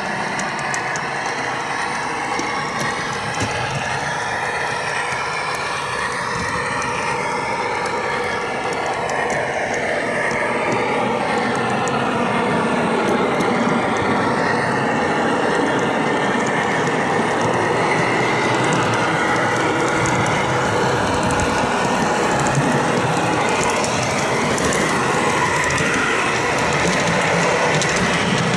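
Model train running along the track with the microphone riding on it: a steady rumble of wheels on the rails, with a motor whine that drifts up and down in pitch.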